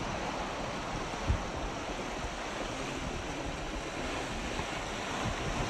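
Sea surf rushing steadily onto the beach, with wind blowing. A brief low thump about a second in.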